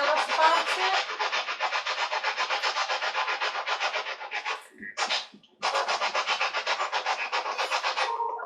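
Spirit box sweeping through radio stations: rapid choppy static pulsing about eight times a second, with brief snatches of broadcast sound. It cuts out for about a second just before the middle, then carries on.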